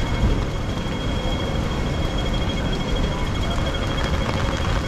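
Rainy city street ambience: a steady low rumble of traffic over the hiss of the wet street, with a faint, thin high tone held steady above it.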